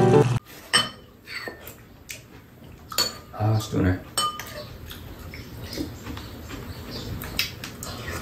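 Metal spoons and chopsticks clinking against ceramic bowls and a metal tray during a meal, in scattered light clicks. Background music cuts off abruptly within the first half-second.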